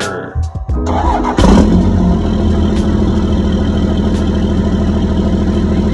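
Truck engine running through its new homemade exhaust tip: it comes in suddenly and loudly about a second and a half in, then keeps running at a steady idle. Background music fades out during the first second.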